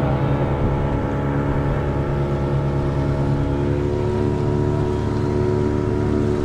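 Motorboat engine running steadily under way, a constant drone with the rush of water along the hull.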